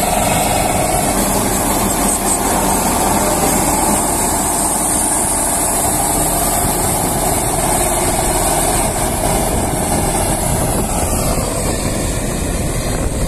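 Sonalika Tiger DI 55 tractor engine running under steady load while it drives a Diamond straw reaper cutting wheat stubble and blowing the chopped straw into a trolley. The result is a loud, unbroken mechanical din with a hiss over it.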